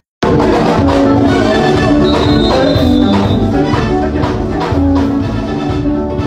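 Loud music with many instruments playing together, cutting in after a split-second dropout at the very start.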